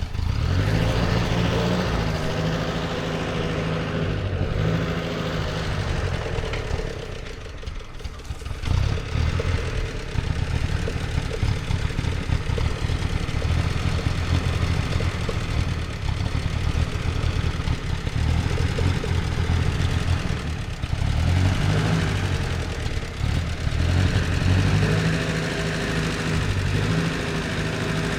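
Ford Jubilee tractor's four-cylinder gasoline engine running steadily while pulling a plow, its pitch rising and falling with the load, easing off briefly about a quarter of the way in.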